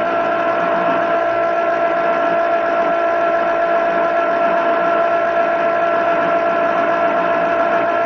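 Antenna rotor motor running as it turns the Yagi antenna: a steady hum of several even tones over a hiss, unchanging throughout.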